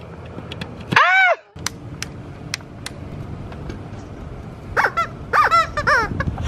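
Rubber chicken squeaking on the end of a vacuum cleaner hose: one drawn-out squeak about a second in, then a quick run of short squeaks, several a second, from near the end.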